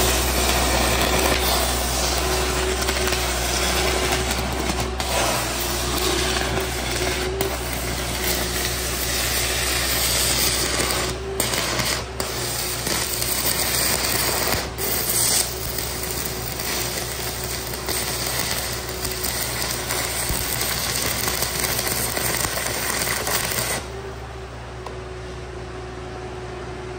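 Stick-welding arc burning 7018 electrodes at about 800 amps: a steady crackle and sizzle with occasional sharp pops, which stops about 24 seconds in. The engine-driven welder's motor keeps running underneath with a steady hum.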